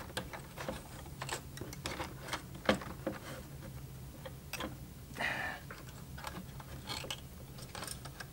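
Light, scattered clicks and taps of fingers handling a small plastic mini sewing machine and tugging at thread jammed in it, with a short rasp about five seconds in.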